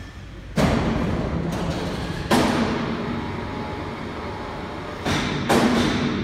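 Background music with heavy, booming drum hits that ring on after each strike.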